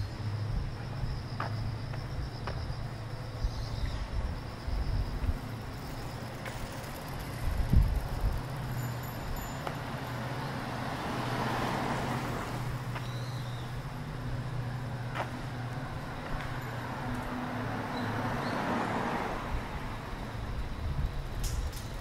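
Cars driving past close by on a narrow street, each one's tyre and engine noise swelling and fading, twice, over a steady low hum of traffic. A single short thump about eight seconds in.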